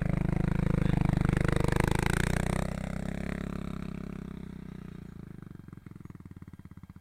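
Four-wheeler (ATV) engine running, loudest in the first couple of seconds, then easing off and growing quieter through the rest.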